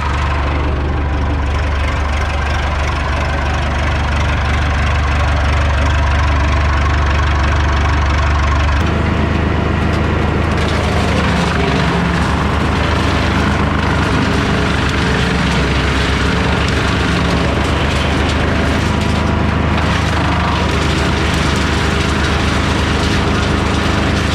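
Vermeer BC1230A wood chipper's Perkins diesel engine running steadily and smoothly, freshly started. The engine note shifts about nine seconds in.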